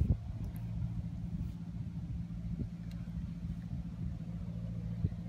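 A steady low engine hum, as of a motor idling, with a sharp knock at the start and another near the end.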